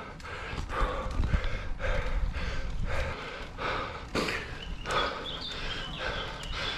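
A cyclist breathing hard in steady, heavy gasps, a bit under two breaths a second, from the effort of riding up a steep 14% climb.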